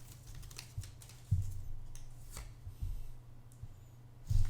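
Pokémon trading card booster pack and cards being handled: scattered light clicks and taps of foil wrapper and card stock, over a low steady hum.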